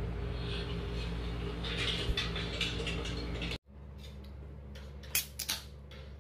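A steady low hum with light crackling cuts off about three and a half seconds in. Then comes a softer hum and two sharp clicks close together about five seconds in, as the pull tab of an aluminium Pepsi can is cracked open.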